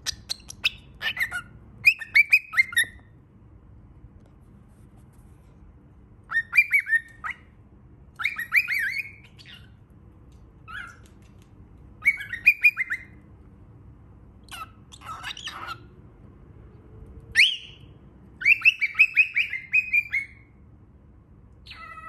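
Baby cockatiel calling in short bursts of quick chirps, about eight bursts a couple of seconds apart, over a low steady hum.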